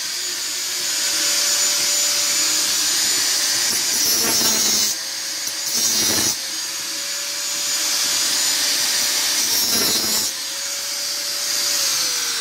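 Handheld angle grinder running with a steady whine while its disc grinds a metal exhaust part, throwing sparks, with harsher bursts three times as the disc bites. Near the end the grinder is switched off and the whine falls as the disc spins down.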